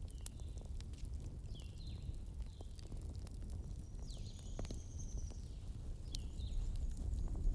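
Campfire crackling, with scattered sharp pops over a steady low noise. Short high chirping animal calls come and go throughout, one drawn out for about a second midway.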